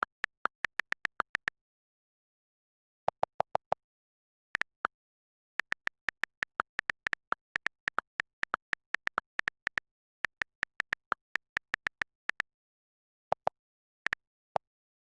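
Rapid short clicks or pips, about five or six a second, in several runs broken by pauses of about a second or more.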